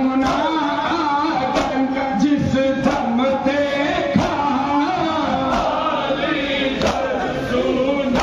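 Male group reciting an Urdu noha (Shia lament) in unison, with the crowd's chest-beating (matam) landing together as one sharp slap about every 1.3 seconds.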